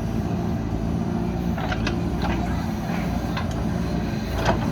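JCB backhoe loader's diesel engine running steadily, with a few short sharp knocks and clanks scattered through it, the loudest near the end.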